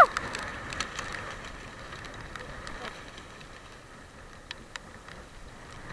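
A short rising-then-falling whoop at the very start, then steady sea and wind noise with light splashing and a few sharp clicks as a hooked giant trevally thrashes at the side of the wooden outrigger boat.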